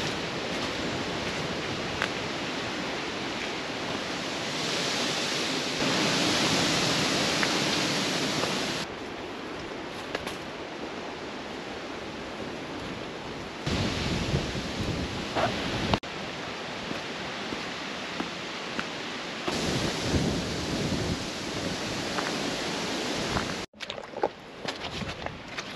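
Wind buffeting the microphone: a steady noisy rush with low rumbling gusts, changing abruptly several times.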